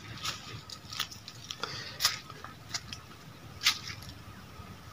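Footsteps crunching on dry leaf litter and soil: irregular crisp crackles a second or less apart, over faint outdoor background noise.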